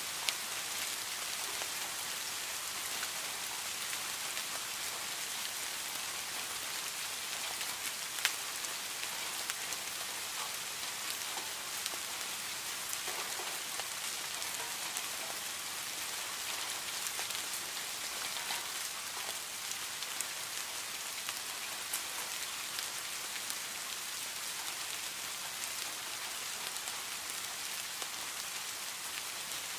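Rain falling on leaves and plants: a steady, even hiss with scattered sharper drop hits, the clearest just after the start and about eight seconds in.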